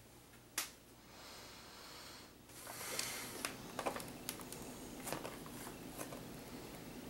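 Bare feet stepping onto a glass digital bathroom scale: a click near the start, a stretch of rustling, then a run of light knocks and taps in the second half.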